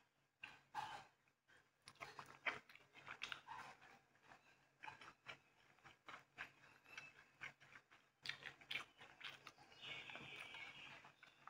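Soft, close-up chewing and wet mouth sounds of someone eating, with irregular small clicks. A brief soft rustle comes about ten seconds in.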